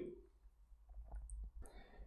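Quiet room tone with a steady low hum and a few faint clicks in the second half.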